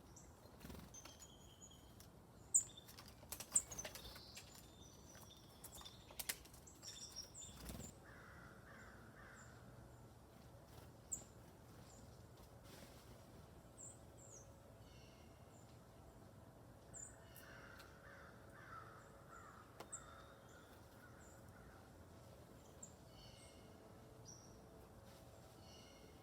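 Faint wild birds: small songbirds give short high chirps throughout, and a larger bird gives two spells of harsh, raspy calls, about 8 seconds in and again around 17 to 20 seconds. A few sharp clicks or knocks come in the first few seconds.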